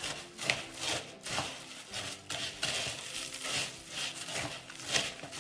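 A metal spoon stirring cornflakes, seeds and condensed milk in a plastic mixing bowl: a run of uneven scraping, rustling stirring strokes as the dry flakes are worked into the mix.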